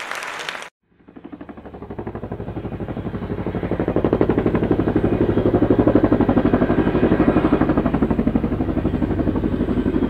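Helicopter passing: fast, even rotor beats that start about a second in, grow louder over the next few seconds, then hold steady.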